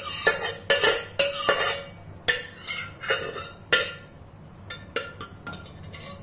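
Steel spoon and ladle scraping and knocking against the inside of a steel pot as thick cooked dal is scraped out into a pan: a quick run of clinks and scrapes, busiest in the first two seconds and sparser after.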